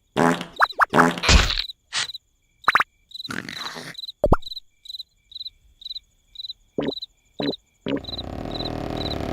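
Cartoon sound effects: a few short comic blips and pitched sounds, then a cricket chirping regularly, short high chirps about twice a second.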